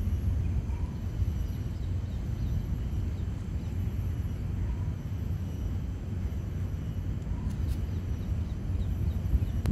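Steady low outdoor rumble, with a faint short chirp every few seconds and a couple of light clicks near the end.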